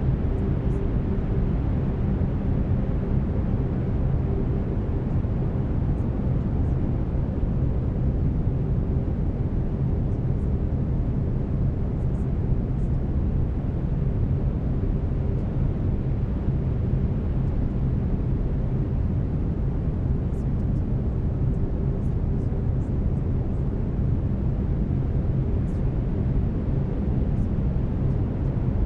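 Steady brown noise: a deep, even rushing hiss, heaviest in the lows, with faint steady low tones running under it.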